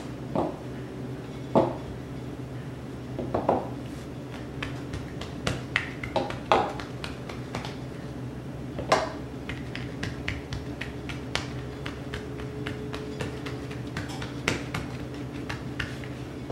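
A white plastic rolling pin rolling and knocking on a granite countertop as biscuit dough is rolled flat: irregular sharp clicks and knocks a second or more apart, over a steady low hum.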